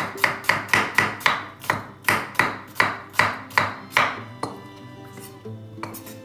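Kitchen knife slicing an onion on a wooden cutting board, a sharp knock about three times a second, stopping about four seconds in. Soft background music runs underneath and carries on alone after the cutting stops.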